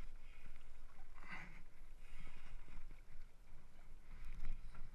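Small waves slapping against a stand-up paddleboard, with a brief louder splash a little over a second in.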